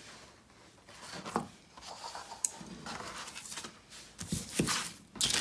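Paper and foam board handled on a cutting mat: soft rubbing and sliding rustles with a few light taps as the painting on its board is turned over, with a louder rustle near the end.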